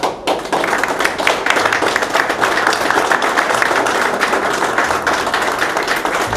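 An audience applauding, a dense steady clapping that picks up just after the start.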